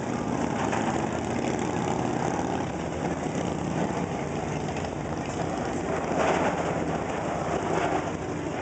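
Excursion boat's engine running steadily at the dock, a low hum under a constant wash of noise that swells briefly a couple of times.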